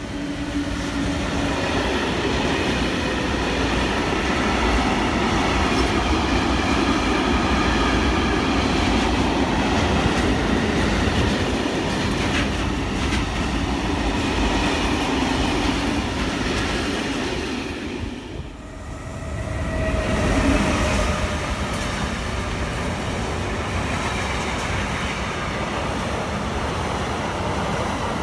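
A freight train rolling past at close range behind an SNCF BB 26000 electric locomotive, its wagons making a steady rolling rumble. About two-thirds of the way in the sound dips briefly, then another freight train of tank-container wagons is heard rolling past.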